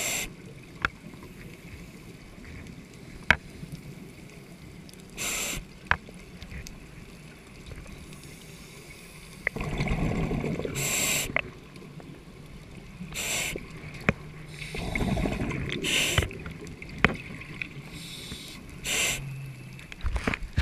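Scuba breathing heard underwater through a regulator: a short hiss every few seconds as air is drawn in, with lower bubbling rumbles of exhaled air in between. Scattered sharp clicks sound throughout.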